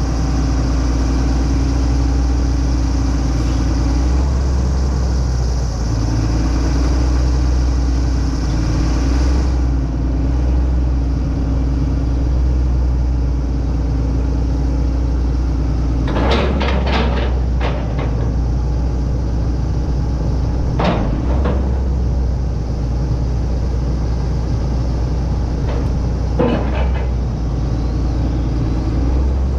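John Deere 330C LC excavator's diesel engine running steadily, with a few short knocks in the second half.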